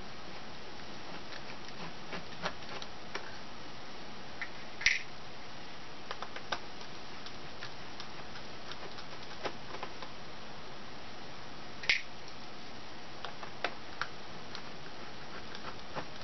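Light scattered clicks and ticks of a small Phillips screwdriver backing out the tiny screws that hold a laptop's LCD screen brackets, with two sharper clicks about 5 and 12 seconds in, over a steady hiss.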